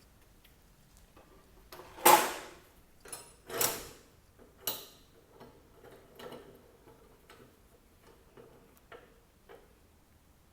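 Pieces of steel bar being handled: three sharp metallic clanks with a brief ring, about two seconds in, then a scatter of light clicks and taps.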